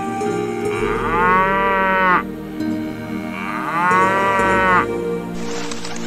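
Highland cattle mooing: two long moos a couple of seconds apart, each rising and then falling in pitch.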